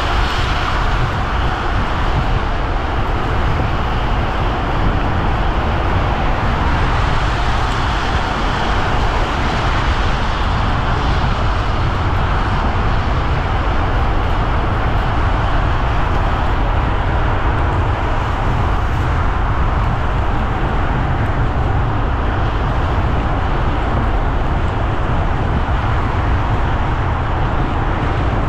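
Car driving on wet roads in the rain: a steady wash of tyre spray and rain noise over a low engine and road hum, unchanging throughout.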